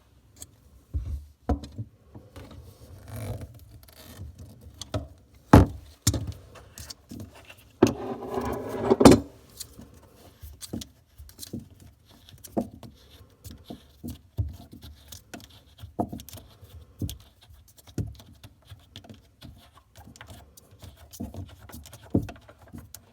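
Irregular clicks, knocks and rattles of hand work under a bathroom sink: the tight plastic mounting nut that holds the faucet to the counter being worked loose, with a longer rattling scrape about eight seconds in.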